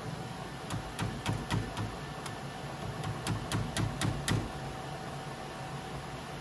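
About a dozen sharp clicks and light knocks, a few a second, as a screwdriver is jabbed and worked down into a Creality K1 Max print head to force filament through its clogged nozzle. They stop after about four and a half seconds. A steady low hum with a faint whine runs under them.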